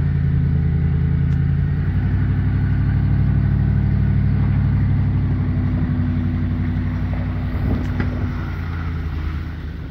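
An engine running steadily under load as a speedboat is hauled up the ramp on its trailer. Its note shifts about two seconds in and eases off near the end.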